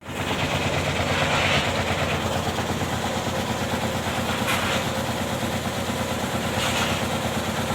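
Electric jigsaw machine running steadily with a fast reciprocating chatter as it cuts wood, with brief louder rasping surges about a second and a half, four and a half, and near seven seconds in.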